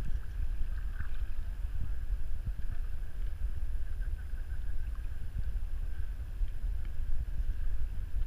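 Wind buffeting the microphone and water rushing along the hull of a Dart 18 catamaran under sail, a dense uneven low rumble that never lets up.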